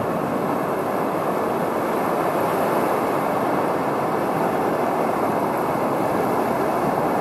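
Steady, muffled water noise heard from inside an underwater camera's waterproof housing, an even rush with no distinct events.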